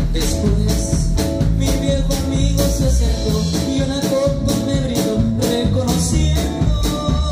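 A live band playing with electric guitars, bass guitar and drum kit, with a steady beat.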